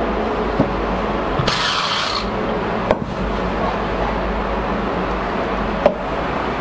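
Handheld electric cap-screwing machine whirring briefly, about a second and a half in, as its chuck spins a cap onto a bottle, over a steady mechanical rumble. Two sharp clicks come later.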